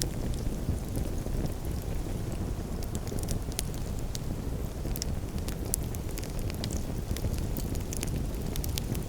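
Campfire crackling: irregular sharp pops and snaps from the burning wood over a steady low rushing rumble.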